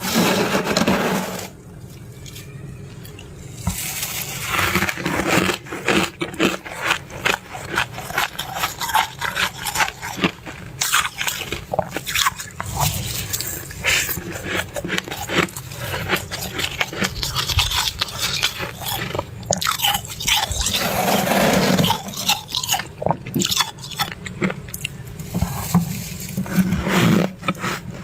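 Fluffy freezer frost being scraped and bitten: a dense run of sharp, crackling crunches, broken by a few longer scraping sweeps.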